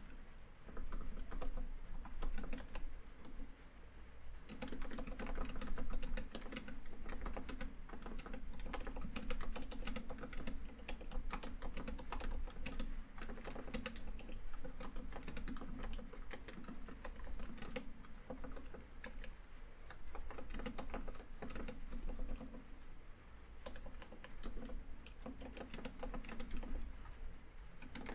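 Steady, fast typing on a laptop keyboard: a dense run of key clicks with a short pause about four seconds in. Rain on a tin roof patters steadily underneath.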